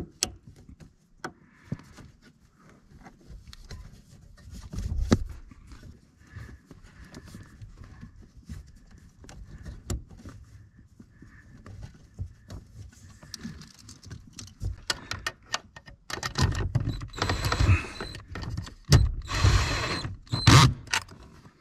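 Ratchet wrench on a long socket extension tightening the brake master cylinder's mounting nuts: scattered metallic clicks and knocks, then quicker, louder runs of ratchet clicking in the last several seconds.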